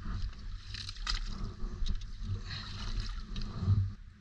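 Footsteps wading through muddy water in a flooded trench: wet, uneven splashes and sloshing.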